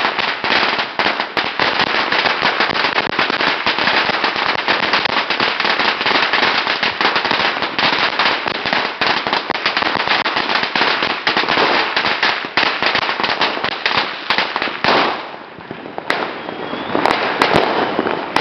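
A long string of Chinese firecrackers (bianpao) going off in rapid, continuous cracks. The cracking eases briefly about fifteen seconds in, then a last few loud bangs follow near the end.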